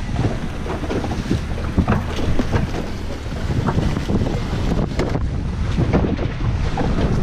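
Wind buffeting the microphone aboard a boat at sea, with waves splashing irregularly against the hull.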